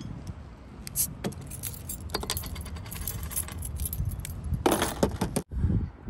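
Keys jangling and small metal clicks as a keychain bottle opener works at the crown cap of a glass soda bottle, with a louder burst of noise about five seconds in.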